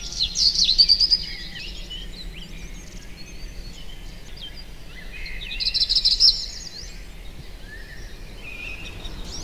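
Small birds chirping and twittering, busiest about half a second in and again around six seconds, over a steady low background hum.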